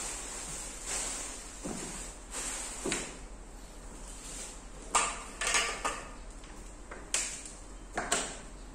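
Plastic packaging rustling, then several sharp clacks and knocks as the boat's aluminium floor panels are picked up and handled, two of them close together about halfway through.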